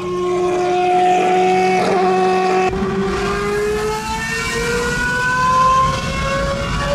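Engine of an open-wheel Formula-style single-seater race car accelerating on the road, its note rising steadily in pitch with a brief dip as of a gear change about two seconds in.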